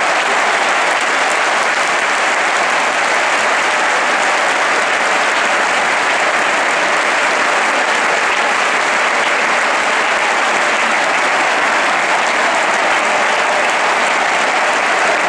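Large stadium crowd applauding steadily, an unbroken clapping that does not rise or fall.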